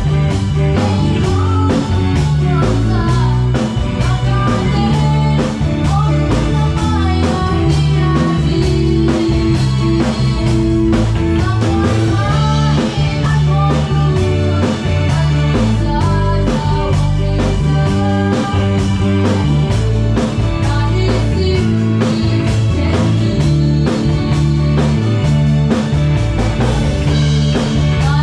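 A live band playing a song: electric bass notes and a drum kit keep a steady groove, with a wavering melody line above them.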